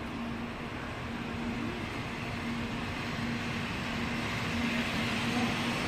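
N700 series Shinkansen pulling into the platform: a steady rush of running and wheel noise that grows louder as the front cars come past, over a steady low hum.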